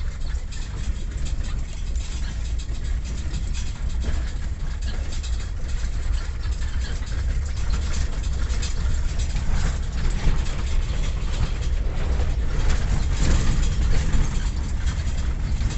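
A vehicle on the move: a steady deep rumble with a rough, crackly noise above it, growing somewhat louder over the last few seconds.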